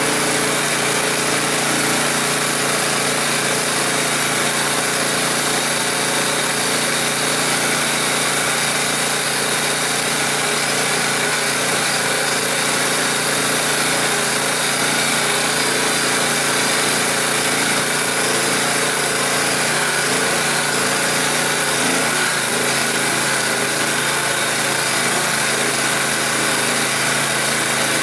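Small engine of an all-terrain vehicle running steadily as it drives over snow, heard on board, with an even pitch and no change in loudness.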